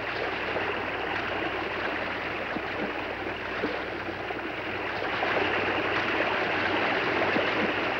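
Soundtrack effect of a large waterfall: a steady rush of falling water that grows a little louder about halfway through.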